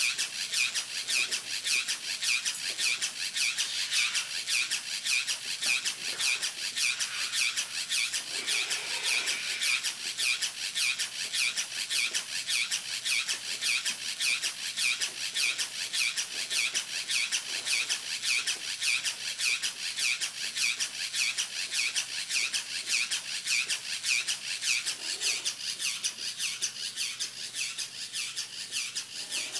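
Battery-powered Moto Mister 48 oz sprayer running continuously, its small pump pulsing fast and evenly with a hiss of spray.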